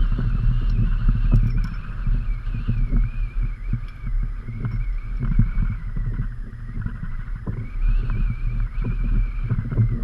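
Strong wind buffeting the camera microphone in an uneven low rumble, with choppy water slapping and splashing against the kayak hull. A faint, wavering high whistle sits above it.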